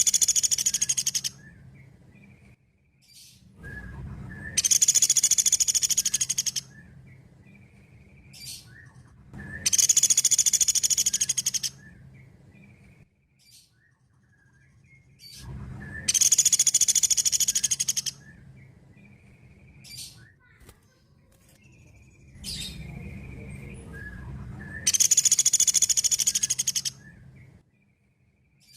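Pelatuk beras (a small woodpecker) calling in high, rapid trills, each about two seconds long, repeated about every five to six seconds, with fainter short calls in between.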